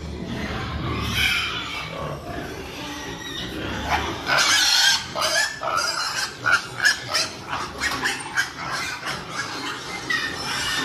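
Pigs squealing: from about four seconds in, a run of short, high squeals, several a second, over a steady background of animal noise.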